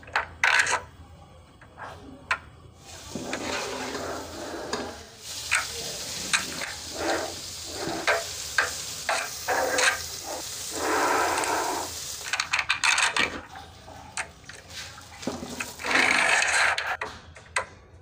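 Small magnetic balls clicking and rattling as hands snap slabs of them together and pull them apart, with stretches of dense clattering.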